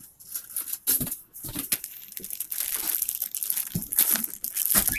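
Plastic packaging being handled, with irregular crinkling and crackling and some tearing.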